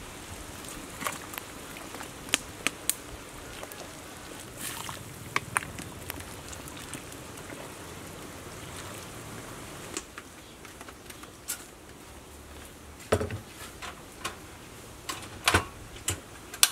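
Pot of cow tail soup bubbling at the boil, with scattered clinks of a metal ladle against the pot. About ten seconds in the bubbling drops away, and a few louder knocks and clinks of cookware follow.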